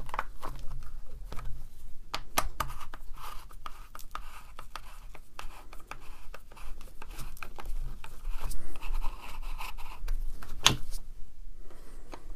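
Plastic handle housing of a demolition hammer being worked apart by hand: scraping and rubbing with scattered clicks and a few sharp knocks, loudest about two seconds in and again near the end, as the housing halves come apart.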